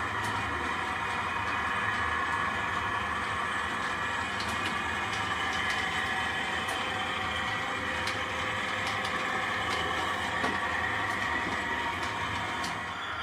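H0-scale model freight train running on the layout: a steady motor hum and wheel rumble with a few faint clicks scattered through it.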